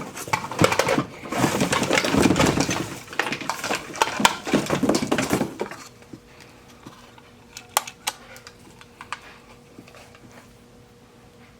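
Sewing machine foot pedals and metal parts clattering and rattling as they are rummaged through and lifted out of a cardboard box, dense for about half the time, then dying down to a few scattered clicks.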